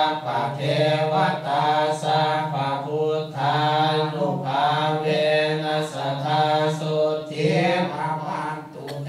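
Buddhist chanting, voices reciting together on a nearly level pitch with short pauses between phrases.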